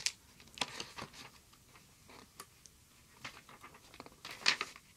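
A paperback book being handled and opened, its pages leafed through: short, irregular paper rustles and flicks, with a louder cluster near the end.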